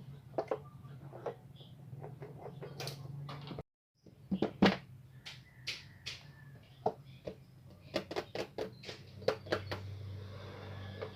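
Scattered light clicks and taps of packaging being handled, over a steady low hum, with a brief dropout to silence a little before four seconds in.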